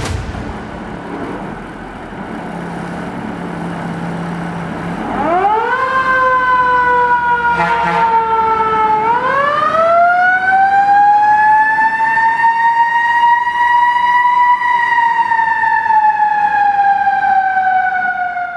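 Fire engine siren starting about five seconds in: it winds up quickly, sags slowly, then winds up again to a long slow peak and falls off gradually. Before it there is a low steady hum.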